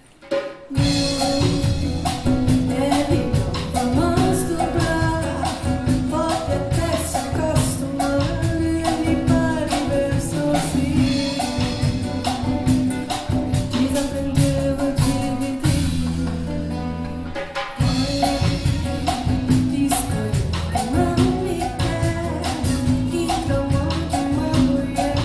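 Brazilian song played by a band: a singer over busy percussion and a bass line. The music drops out briefly at the very start, and about two-thirds of the way through the percussion stops for a couple of seconds under a held bass note before coming back in.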